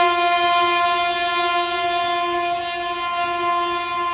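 WAG-9 electric locomotive's air horn sounding one long, steady blast at a single pitch.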